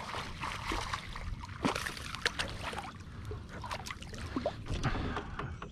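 Hooked fish thrashing at the water's surface: a run of sharp, irregular splashes with water sloshing in between.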